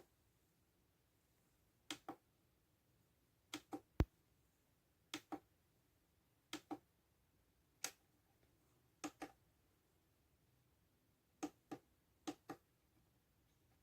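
Sharp clicks, mostly in close pairs, every one to two seconds, with one louder thump about four seconds in; near silence between them.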